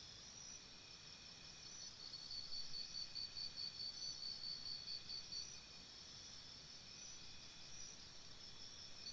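Crickets chirping faintly: several overlapping high trills, one pulsing at about four beats a second for a few seconds, over a low steady background hum.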